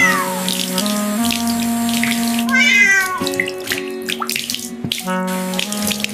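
Background music of held notes with a cat meowing over it: the end of one falling meow at the start and another rising-then-falling meow about two and a half seconds in, along with a hiss like water running from a tap.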